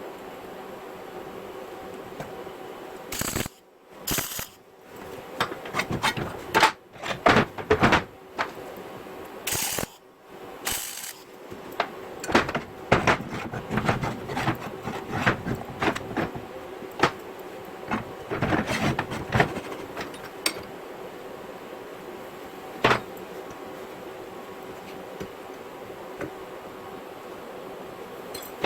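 Metal tool parts being handled and worked: a run of irregular clanks, knocks and clicks over a steady background hum, then one more knock later on.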